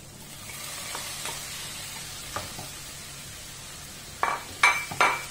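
Shrimp going into a hot frying pan of vegetables and sizzling, the hiss swelling as they land, with a slotted spatula stirring them through. A few sharp clinks near the end.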